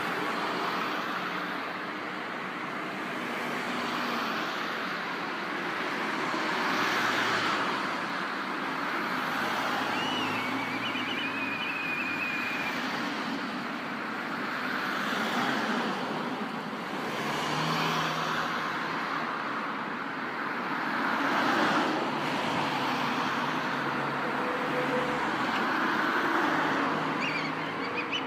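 Steady road traffic noise swelling and fading as vehicles pass. About ten seconds in, a faint whistled bird call sounds over it: a high note followed by a wavering trill, which the uploader takes for a black kite's "pii-hyororo".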